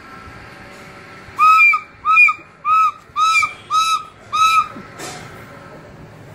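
A child blowing a toy flute: six short, evenly spaced hooting notes, each bending up and back down in pitch.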